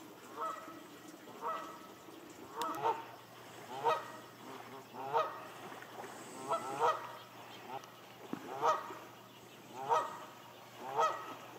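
Canada geese honking repeatedly, a call every second or so, some of them in quick pairs.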